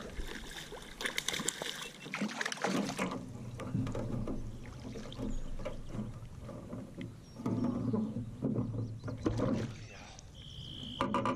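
Hooked largemouth bass splashing and thrashing at the water's surface beside the boat in irregular bursts, heaviest in the first few seconds, with more splashing as it is lifted from the water near the end.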